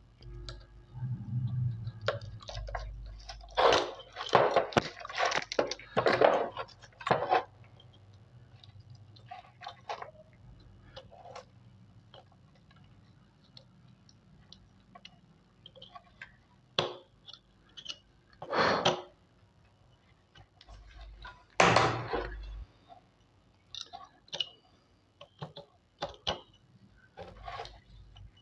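Irregular scraping and clicking of a tool and fingers on an LED bulb's metal LED plate and plastic housing as the plate is worked loose, with a cluster of scrapes a few seconds in and single ones later.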